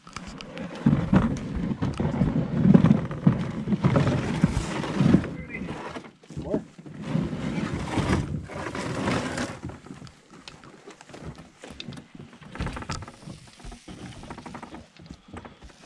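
Canoe hull scraping and sliding over dirt and rocks as it is hauled out of the water onto the shore, with scattered knocks from paddles and gear inside it, loud for most of the first nine seconds. After that, quieter shuffling and rustling with a few sharp clicks.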